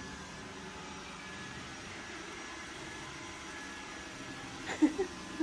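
Steady low hum of a running machine, with a few faint steady tones in it. Near the end come two or three brief, louder sounds that bend in pitch.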